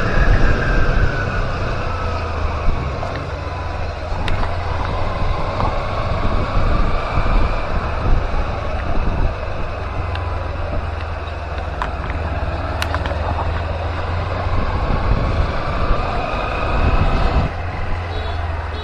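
Kawasaki Z250's parallel-twin engine running while the bike is ridden, its pitch slowly falling and then rising again as the revs change, with wind rushing over the microphone.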